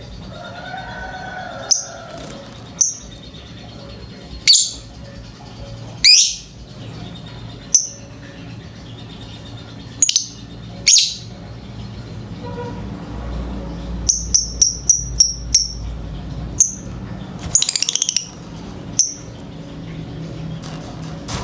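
Lovebird giving sharp, high-pitched chirps and shrieks, mostly one at a time with gaps. Near the middle comes a quick run of about six, and a brief rapid trill follows a few seconds later.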